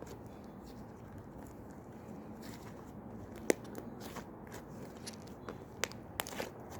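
Slime being squeezed and pressed by hand, giving scattered small clicks and crackling pops, with a sharper pop about halfway through and a cluster of pops near the end.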